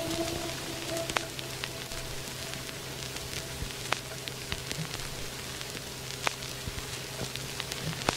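Soft steady hiss with scattered small crackling ticks over a low steady hum, as the last of a music note fades out in the first second.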